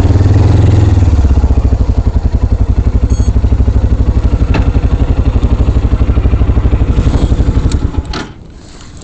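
Motorcycle engine idling close by with a steady, even beat, then switched off about eight seconds in, the running cutting out abruptly.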